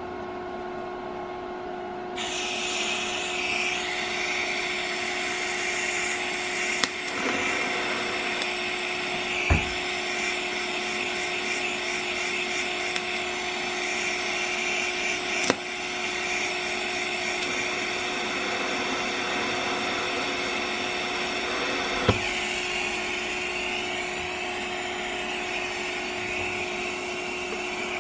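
DC TIG welding arc tacking two pieces of flat metal with the torch alone, no filler rod: a steady hissing buzz that starts about two seconds in and runs on, with a few sharp clicks, over a steady hum underneath.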